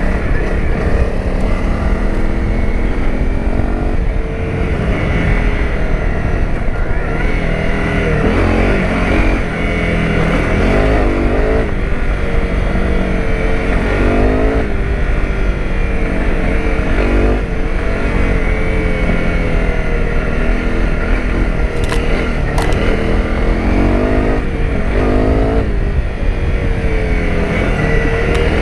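Honda CRF250 Rally's single-cylinder four-stroke engine running under way, its revs rising and falling over and over as the rider works the throttle and gears, over a heavy low rumble. A couple of sharp clicks come a little over three quarters of the way through.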